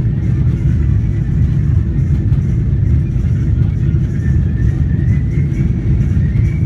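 Airliner jet engines and airflow during takeoff: a steady low rumble, with a faint whine that rises slightly in the second half.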